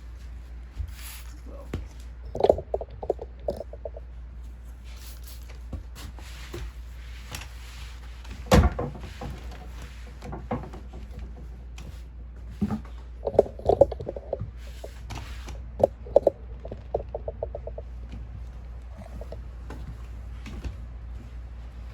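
Household cleaning and tidying sounds: scattered knocks and clicks of objects being handled, the loudest a sharp knock about a third of the way in, with three short runs of quick rattling or scrubbing strokes, over a steady low hum.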